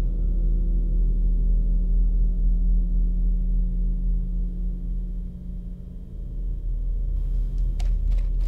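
A deep, steady, resonant drone of several held low tones, a soundtrack underscore for a tense scene. A few short clicks or knocks come near the end.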